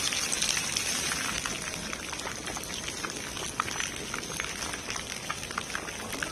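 Fountain jets spraying and falling back onto the dome and into the basin: a steady hiss of falling water with many small splashes.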